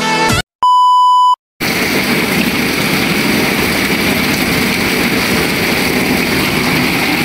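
A single steady electronic beep lasting under a second, then heavy rain pouring down steadily onto standing floodwater.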